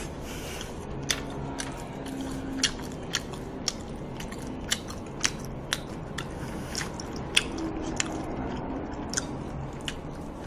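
A person chewing a mouthful of food close to a microphone: irregular wet mouth clicks and smacks, one to three a second.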